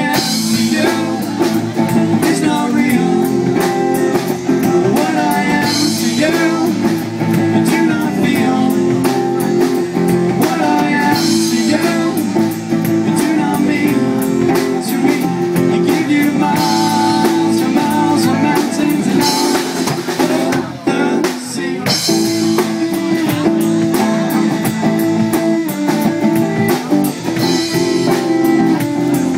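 A band playing a song live: acoustic guitar and drums with a singing voice.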